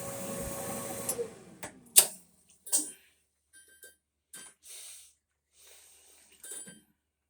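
GE dryer's drive motor running with a steady hum, its heating circuit drawing no current. About a second in it is switched off and the hum falls in pitch as the motor spins down. A few sharp clicks and knocks follow, the loudest about two seconds in.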